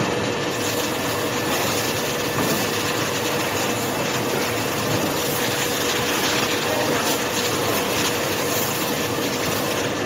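Whirlpool bathtub running its sanitizing cycle: a steady mechanical whir with water churning and bubbling in the tub, over one constant hum.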